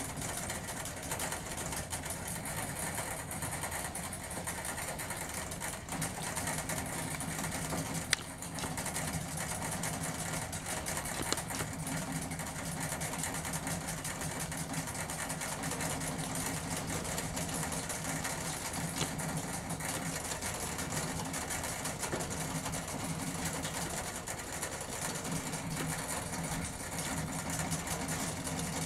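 A rabbit drinking from a bottle's metal nipple drinker, licking at the spout so that the valve clicks rapidly, over a steady low hum. One sharper click comes about eight seconds in.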